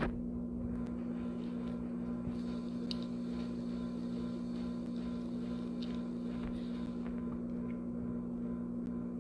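A steady low electrical hum, with a few faint clicks.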